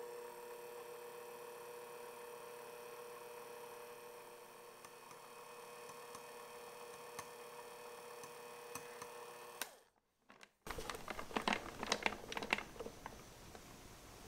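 Electric hand mixer running steadily with a constant motor whine, its beaters whipping egg whites into stiff, glossy meringue in a glass bowl. The motor cuts off about ten seconds in, and a cluster of sharp clicks and taps follows.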